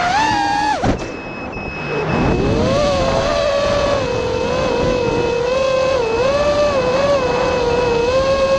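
Racing quadcopter's brushless motors and Race Kraft 5051 propellers whining, heard from the onboard camera. The pitch rises with throttle, then cuts off abruptly about a second in. It spools back up a second or so later and settles into a steady whine that wavers with small throttle changes.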